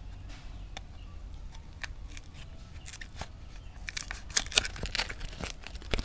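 Paperboard cigarette pack being pulled apart at its glued seams by hand: scattered small crackles and clicks, then a louder burst of tearing and crackling about four seconds in as the flaps come unstuck.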